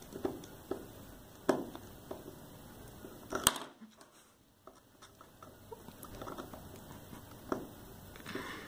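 Small screwdriver working a tiny screw out of a plastic device case: scattered light clicks and taps of the tip in the screw head and of fingers handling the casing. The sharpest click comes about three and a half seconds in, followed by a brief hush.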